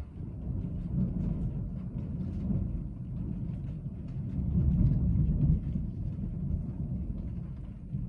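A long roll of thunder, coming in suddenly, swelling to its loudest about five seconds in and then slowly easing off, heard from inside a car. Raindrops tick lightly on the car throughout.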